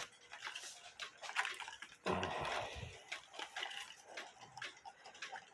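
Light, irregular ticks and clicks, with a brief louder rustling knock about two seconds in.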